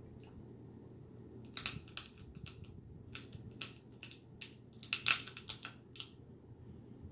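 Snow crab leg shells being cracked and snapped open close to the microphone, a quick irregular run of sharp crackles and snaps from about a second and a half in until near the end.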